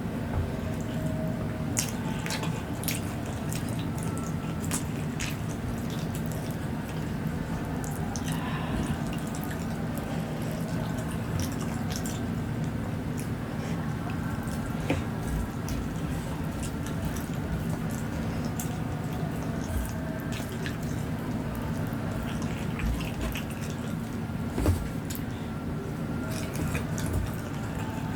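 Close-miked eating sounds: wet chewing and squishing with many small sharp mouth clicks, over a steady low hum.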